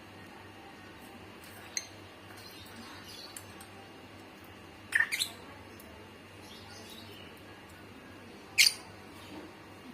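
A bird giving short, sharp chirps a few seconds apart: a faint one about two seconds in, a loud double chirp about five seconds in, and another loud one near the end.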